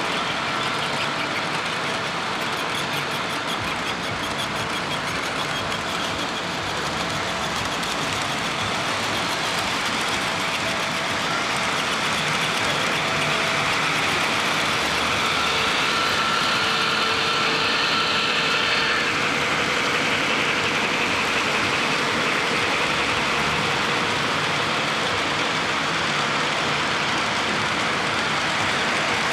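O-gauge model freight cars rolling on three-rail track: a steady, even rumble and clatter of metal wheels on the rails, with a faint thin high tone that strengthens for a few seconds around the middle.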